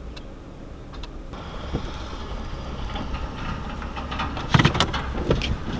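Low engine hum and road noise heard inside a vehicle's cab as it drives slowly up behind the tow truck, the noise growing about a second in. Several sharp knocks and clicks come near the end, the loudest about four and a half seconds in.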